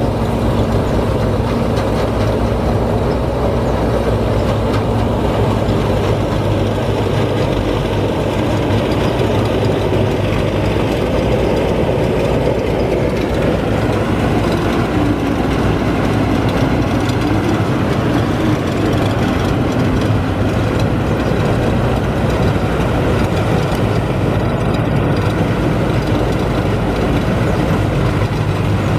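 Rice combine harvester running steadily, a continuous loud engine drone with the rumble and rattle of the machine.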